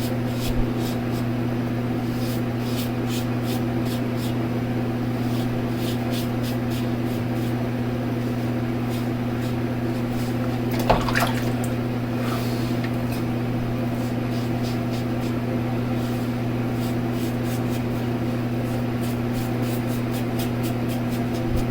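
Shaving brush worked in a shave bowl, giving soft wet squishing and many faint light clicks, over a steady low electrical hum.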